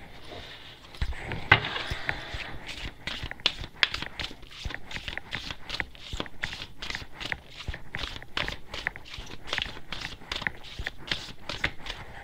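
A deck of tarot cards being shuffled by hand: a steady run of light card flicks and slaps, about three a second, with a sharper knock near the start.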